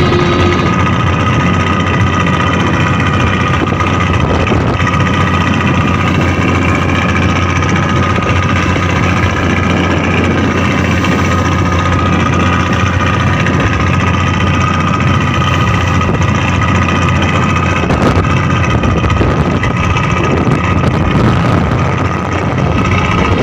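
Small boat's engine running steadily under a dense wash of noise.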